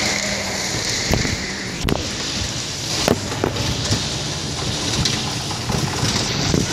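Camera handling noise: the microphone rubbing and scraping against fabric in a steady crackly rush, broken by several sharp knocks.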